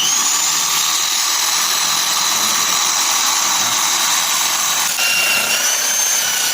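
Homemade mini cassava grinder running at speed: a loud, steady high-pitched motor whine with a rushing grind, rising as it spins up at the start. Its tone changes about five seconds in.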